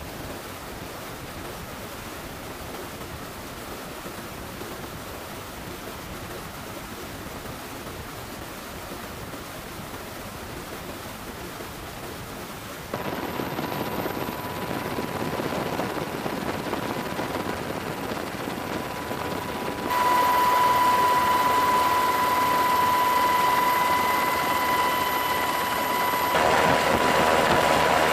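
Steady rushing noise of military aircraft in flight. About 13 seconds in it switches to louder engine noise with a steady high whine, which gets louder again about 20 seconds in.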